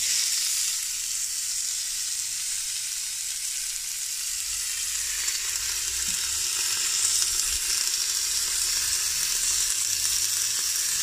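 Oiled fillet steak sizzling steadily in the hot, dry inner pot of an air fryer, starting suddenly as the steak goes in: the pot is up to searing temperature.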